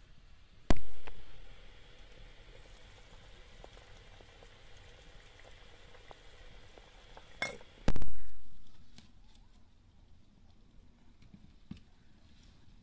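Wood fire crackling faintly in a brick oven, broken by two sharp, loud knocks, one just under a second in and one about eight seconds in, each dying away over about a second.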